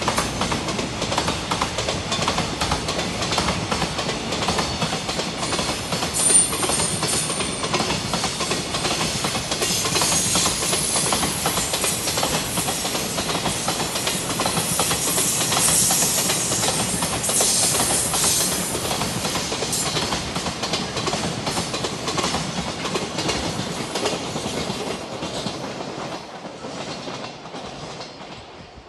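Freight train wagons rolling past close by: a steady, loud clickety-clack of steel wheels over the rail joints, which fades away over the last few seconds as the end of the train passes.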